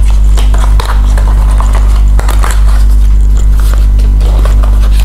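Cardboard box being handled and opened: scraping, crackling and clicking of the card and its flaps, over a steady low hum.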